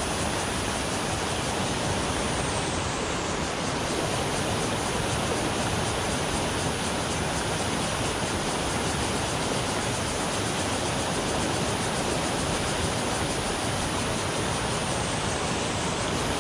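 Stream water pouring over a low concrete weir, a steady, even rushing.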